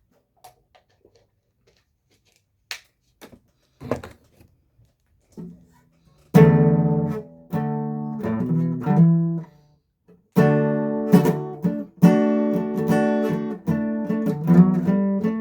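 Acoustic guitar chords, plucked and strummed and left to ring. A few faint clicks of handling come first, the playing starts about six seconds in, breaks off briefly near the ten-second mark, then resumes.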